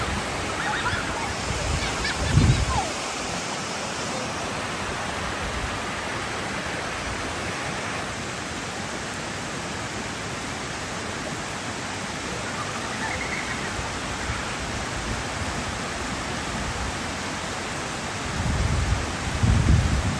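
Waterfall rushing, a steady even roar of falling water. Two brief low rumbles rise over it, about two seconds in and near the end.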